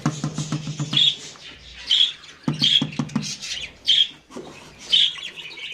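Budgerigars giving short harsh squawks that repeat about once a second, with a low rapid buzzing rattle twice, at the start and a little before halfway.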